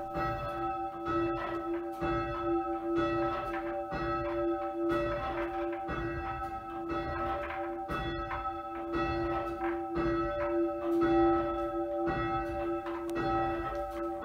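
A church bell being rung up by rope in full-circle change-ringing style, swinging higher with each hand stroke and back stroke as it nears the upside-down position. Its clapper strikes again and again, about once a second, over a steady, sustained hum. It is heard from the ringing chamber below the bells.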